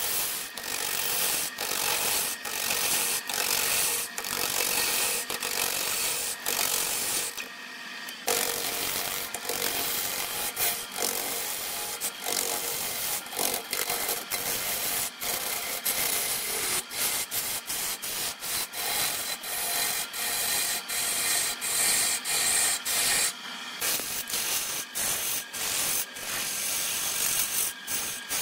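A turning tool cutting into a large block of wood spinning on a wood lathe: a continuous rough shaving and scraping noise that keeps dipping briefly as the tool bites and eases off. It pauses briefly twice, about eight seconds in and again near the twenty-third second.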